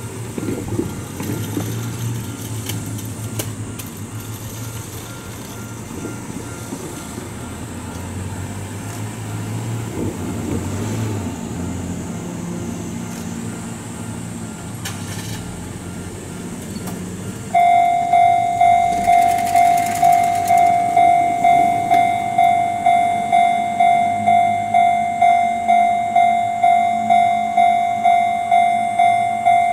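Ohmi Railway 300 series electric train rumbling in at low speed and coming to a stop. About 17 seconds in, the level-crossing warning bell starts suddenly and rings about twice a second, signalling the crossing is closing for a train.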